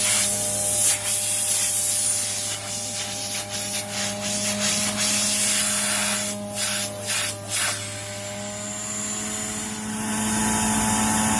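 Carpet-cleaning vacuum pulling air through an opened Silver Bullet inline vacuum filter, a loud rushing hiss over the steady hum of the running machine, as the filter is burped to draw the water out of it. The airflow is choked off several times in quick succession, three times between about six and a half and seven and a half seconds in, then runs quieter for a couple of seconds before picking up again near the end.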